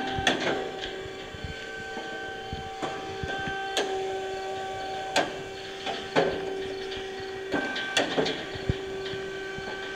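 The rebuilt slab saw's electric-motor-driven hydraulic pumping unit running with a steady whine. Sharp clunks come every second or so, and the whine shifts at several of them.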